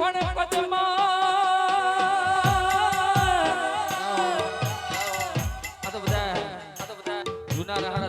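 Gujarati folk raas music: a long held note that wavers for the first half, over a steady deep drum beat and rattling percussion.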